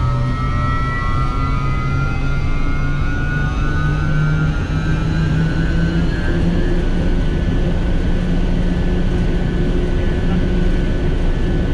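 A 2000-horsepower induction motor driving a large induced draft fan, running up to full speed: a loud, steady rush of air and machine noise with a low hum, under several whining tones that rise slowly in pitch and level off in the second half.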